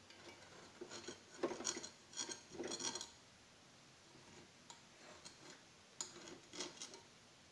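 A metal spoon scraping and clinking against a nonstick frying pan as it loosens the edges of a large pancake for flipping. A run of strokes comes from about a second in to three seconds, and lighter ones come near the end.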